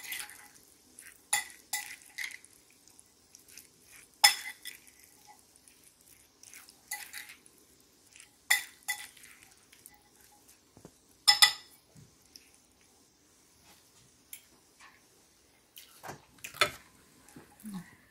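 Metal fork and spoon clinking and scraping against a ceramic bowl while tossing white beans in dressing: irregular sharp clinks with brief ringing, the loudest about four seconds in and a quick double clink around eleven seconds.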